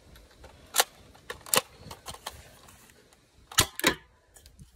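Sharp plastic clicks from a modified Nerf dart blaster being handled and readied, then two louder sharp cracks about a third of a second apart, a little after three and a half seconds in, as it is fired at a can.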